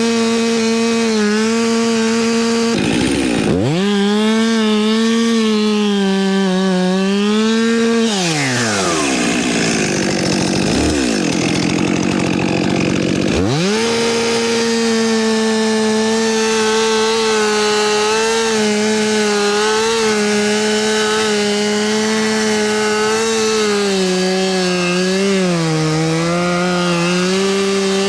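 Two-stroke chainsaw running at full throttle, cutting into a tree trunk for the notch of a felling cut, its pitch wavering as the chain bites. About 8 seconds in the revs fall away, pick up and fall again, then return to full and the cutting goes on.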